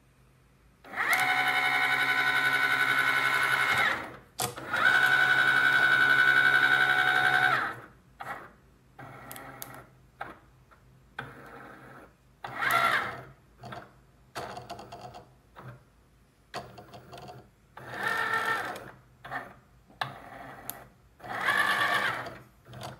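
Cricut Explore Air 2 cutting machine's motors whining, first in two long steady runs as the mat is fed in, then in short stop-start bursts as the carriage moves over the sheet while the machine scans the printed registration marks for a print-then-cut.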